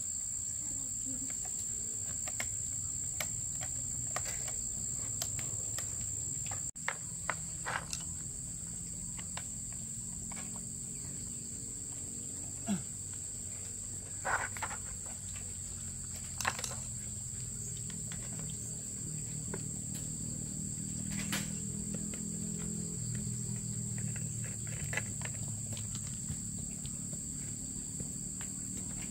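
A steady high-pitched insect drone, like crickets, over a low hum, with scattered short clicks and knocks.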